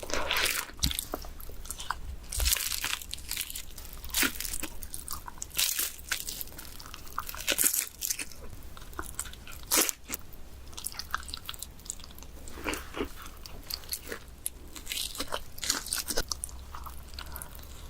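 Pizza being bitten and chewed close to the microphone, the crust crunching in a quick string of separate bites.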